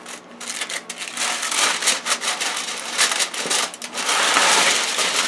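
Pre-cut aluminum foil sheets crinkling and crackling as they are pulled from their box and handled, louder about four seconds in.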